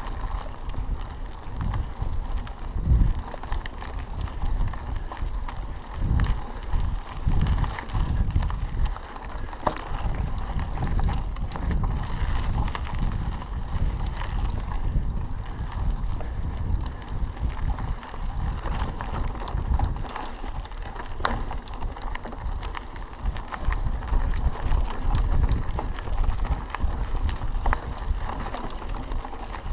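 Mountain bike being ridden on a dirt and gravel singletrack: tyre noise with scattered clicks and rattles from the bike over the rough ground, and wind buffeting the camera's microphone in low gusty rumbles.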